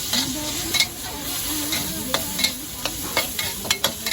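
Food sizzling in a wok as it is stir-fried, with a metal spatula clanking and scraping against the wok many times.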